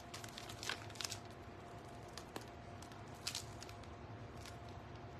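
Faint crinkling and squishing of a plastic piping bag being squeezed and handled, a few short rustles and one small click, over a steady low hum.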